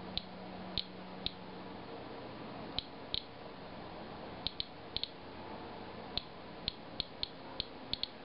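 Inspector Alert Geiger counter clicking at each detected count, short high clicks at random, uneven spacing, about two a second. It is measuring a rain-soaked sample that reads more than the background rate.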